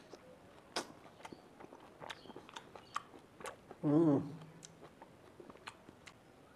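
Close-up chewing and wet mouth clicks from someone eating peeled orange, with a brief hummed vocal sound about four seconds in, the loudest moment.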